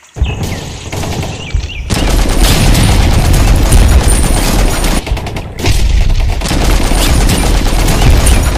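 Rapid automatic machine-gun fire, a sustained rattling burst from a toy gun or a dubbed gun sound effect. It starts softer, gets louder about two seconds in, and breaks off briefly about five seconds in before carrying on.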